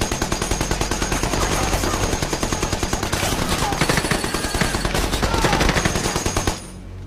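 Continuous rapid automatic fire from several machine guns, shots overlapping into a steady run that cuts off abruptly about six and a half seconds in.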